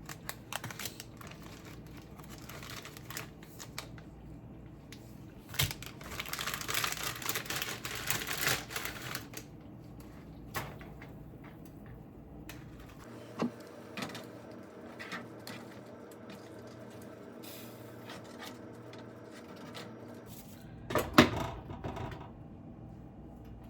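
Noodle-preparation handling sounds: scattered clicks and knocks, a few seconds of hissing noise about six seconds in, and a sharp knock near the end.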